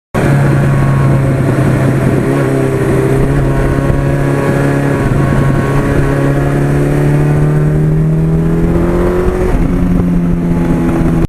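1982 Suzuki GS1100E's air-cooled inline-four engine running under way, its pitch climbing slowly as the bike gathers speed. There is a brief break and slight drop in pitch near the end.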